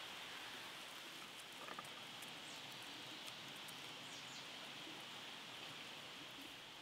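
Smoked salt grains sprinkled onto a raw pork tomahawk steak on a wooden board, heard as faint scattered ticks over a steady outdoor hiss.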